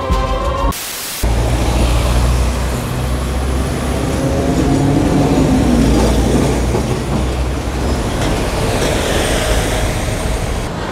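Steady city traffic noise: a low engine and road rumble with a wash of street noise. About a second in, a brief hiss cuts in for half a second.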